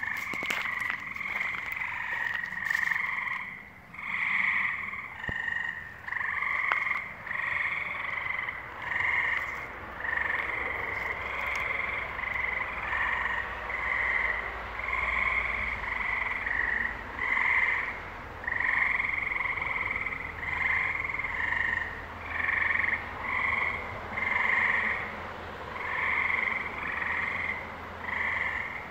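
A chorus of frogs calling: short calls repeat about once a second, several overlapping, each with a higher and a lower pitch.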